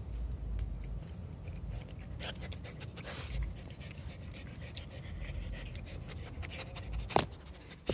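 Husky puppies panting close to the microphone over a low rumble, with light rustling and a sharp knock about seven seconds in.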